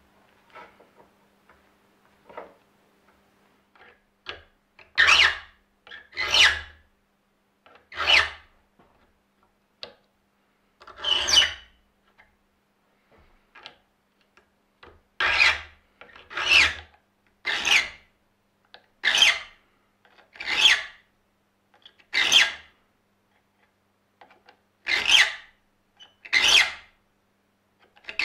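Saw file rasping across the teeth of a handsaw held in a vise: about a dozen separate push strokes, roughly one every second, with a short break in the middle, sharpening the teeth for crosscut. A few faint clicks come before the first stroke.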